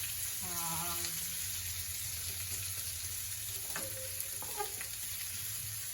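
Chopped onions and beans sizzling steadily in hot oil in a kadai while being stirred, with a couple of clinks from the spatula near the middle.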